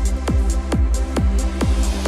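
Electronic dance music with a steady kick drum, about two beats a second, over sustained synth chords.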